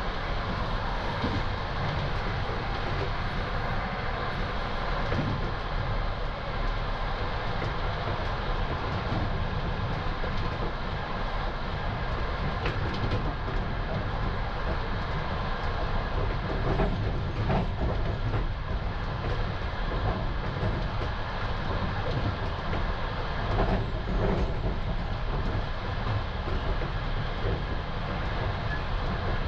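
Old Russian compartment sleeping car running at night, heard from inside the compartment: a steady low rumble of the wheels and running gear on the track. A few sharper knocks come through at times.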